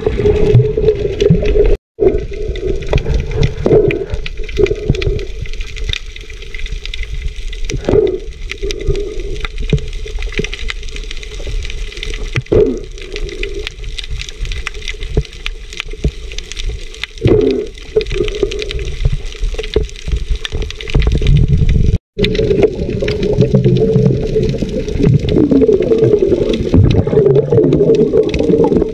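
Muffled underwater sound from a camera held below the sea surface: continuous sloshing and gurgling water with many small crackles, breaking off briefly twice.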